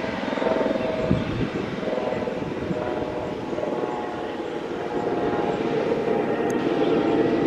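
Jet engines of a Boeing 777-300ER (GE90-115B turbofans) running steadily, a continuous rush with several whining tones, growing a little louder about five seconds in.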